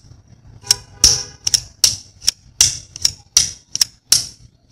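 A steel screwdriver shaft clicking sharply against a ring magnet about a dozen times, at an uneven two or three clicks a second, as it snaps onto the magnet and is pulled off again while the screwdriver is being magnetized.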